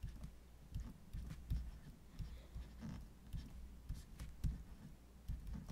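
Stylus writing on a tablet surface: faint, irregular light taps and short scratchy strokes as an equation is handwritten, over a steady low hum.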